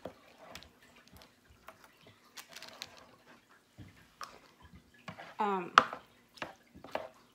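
Light clicks and taps of meal-prep containers and utensils being handled on a kitchen counter, with a short rising vocal sound a little past five seconds in.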